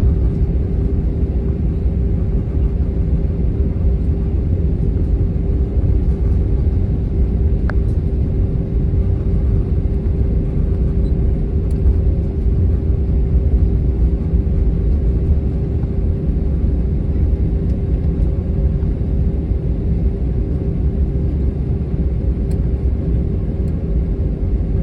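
Steady low rumble inside an Airbus A321 cabin, with a constant hum at one pitch, from its IAE V2500 engines running at idle as the jet taxis. There is a faint click about eight seconds in.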